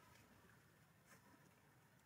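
Near silence: faint background hiss, with one faint click about a second in.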